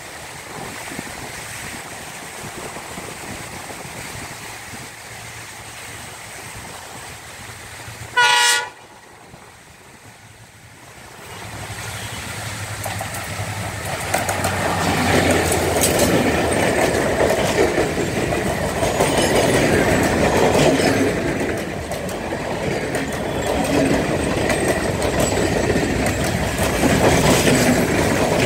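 Sri Lanka Railways Class M11 diesel locomotive (EMD WDG-4D type) approaching. It gives one short, loud horn blast about eight seconds in, and its rumble grows to a loud pass. Then the passenger coaches roll by with rhythmic wheel clatter on the rails.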